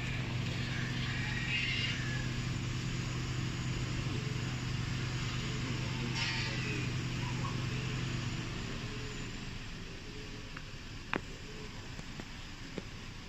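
Car engine running steadily at a constant pitch, fading away after about eight seconds, followed by a sharp click.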